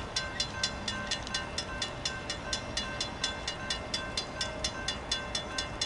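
Railroad grade-crossing bell ringing rapidly and steadily, about four strikes a second, while the crossing signals are activated for an approaching train.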